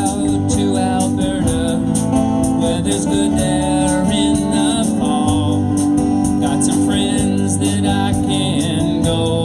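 Live band playing a country-folk song.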